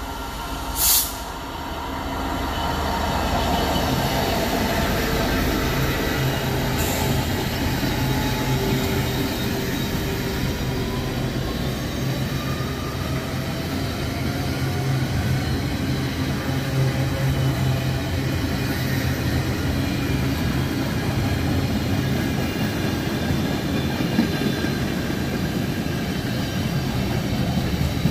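Freightliner locomotive-hauled container train passing through a station at speed: a steady rolling rumble with wheel noise and a low hum from the long rake of container flat wagons. A brief, sharp, loud noise comes about a second in.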